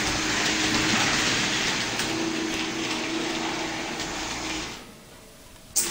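Model train running on the track: a steady whirr of its small electric motor and wheels, with a faint hum. The sound dies away about five seconds in, then returns abruptly with a click near the end.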